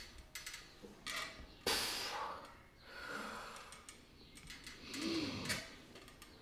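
A man's hard breathing while lifting weights: several forceful exhales a second or two apart.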